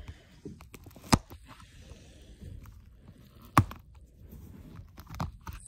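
Fingers picking at the sealing tape on a cardboard toy-train box: faint scratching and handling noise with scattered small taps, and two sharp clicks, about a second in and again about three and a half seconds in.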